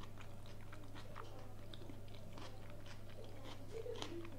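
A person chewing a mouthful of soft layered herring, beetroot and potato salad close to a clip-on microphone: faint, scattered wet mouth clicks. A steady low hum runs underneath.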